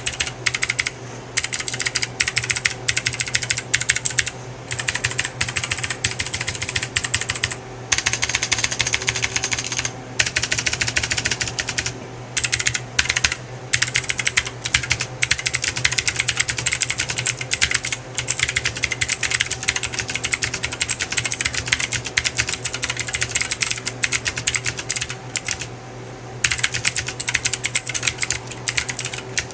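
Fast, continuous typing on a mini mechanical keyboard with clicky blue switches, each keystroke a sharp click, with a few short pauses, over a steady low hum.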